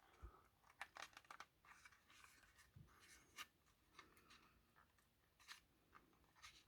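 Faint, scattered small clicks and scratches of a plastic model locomotive body shell being worked free of its chassis clips.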